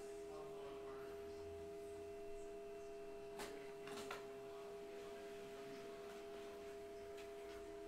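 A printer running as it prints a page, giving a steady, even-pitched hum. Two sharp clicks about half a second apart come near the middle.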